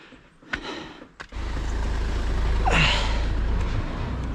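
A steady low rumble sets in about a second in. Near the middle comes one loud, breathy, falling exhale or sigh from a person straining to push a loaded e-bike uphill.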